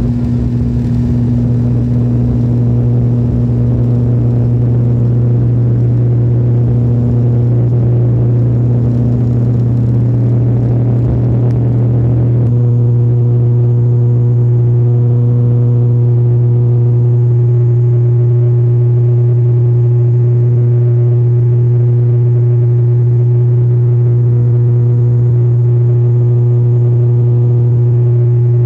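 Airliner engines at takeoff power, heard from inside the cabin during the takeoff roll and climb-out: a loud, steady drone with a deep hum. A rough rumble under it eases suddenly about twelve seconds in.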